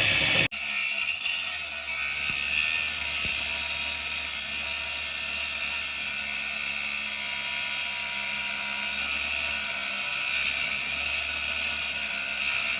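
A steady, high mechanical whir that runs on unchanged, after a louder noisy sound cuts off abruptly about half a second in.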